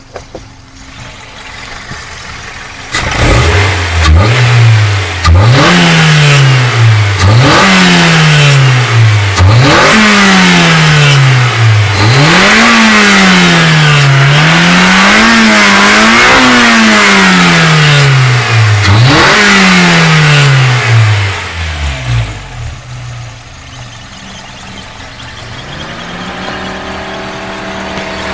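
Toyota 4A-GE 16-valve inline-four engine, heard from the engine bay, free-revved over and over: the revs climb and fall about eight times, then it drops back to a steady idle that lifts slightly near the end. The revving is meant to bring out a weird sound the owner hears at around 4,000 rpm.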